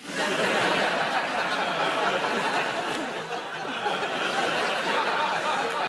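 Studio audience laughing, starting suddenly right after a punchline and going on for several seconds, easing off slightly towards the end.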